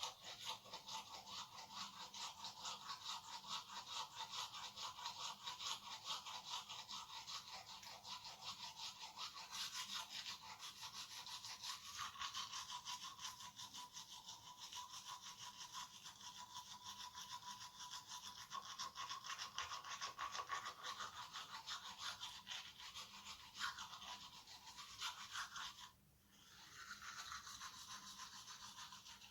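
Faint steady buzzing like a small motor or vibrating device, with a short break near the end.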